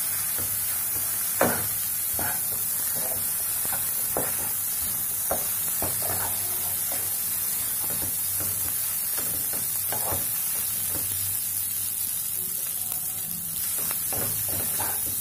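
Boiled Maggi noodles and vegetables sizzling in a non-stick frying pan as they are stir-fried with a spatula. A steady frying hiss runs under irregular scrapes and knocks of the spatula against the pan, the sharpest about one and a half seconds in.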